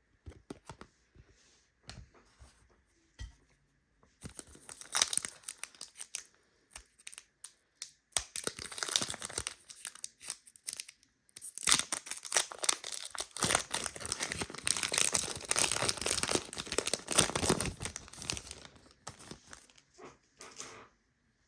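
Foil trading-card pack wrapper being torn open and crinkled by hand: a few light clicks and handling noises, then long stretches of rustling, the loudest in the second half.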